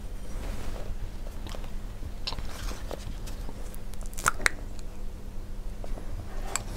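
Soft, scattered small clicks and taps, a few of them close together about four seconds in, over a low steady hum.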